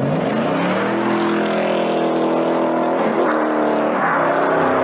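Ford Mustang engine revving hard as the car accelerates away, with a hiss of tyre noise. The engine note climbs over the first second, then holds high and steady, dipping briefly around three and four seconds in.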